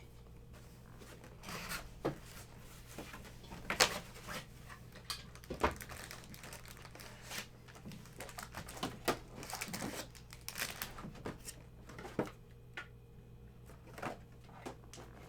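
Hands handling a trading-card hobby box and its plastic wrap: irregular small clicks, taps and crinkling, with a few sharper knocks.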